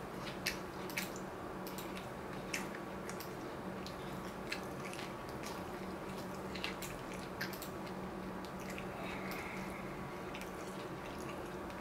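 A man chewing a mouthful of soft chicken sandwich: quiet wet chewing with scattered irregular mouth clicks, over a steady low hum.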